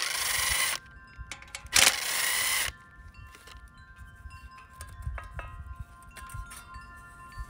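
Cordless drill-driver spinning out the screws on a Champion generator's alternator end cap in two short bursts, then light clicks and taps as the cap is worked loose. A chime-like ringing of several steady tones runs underneath.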